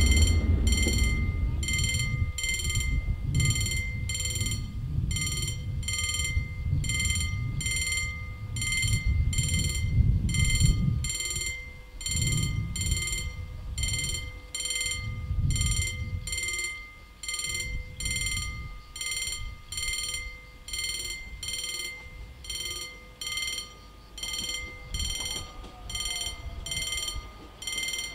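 Railway level crossing warning bell ringing continuously in an even, fast rhythm of about one and a half strokes a second, over an irregular low rumble.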